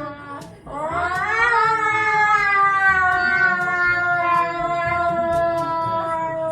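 A cat yowling in one long drawn-out call of nearly six seconds, rising steeply at first and then slowly sinking in pitch.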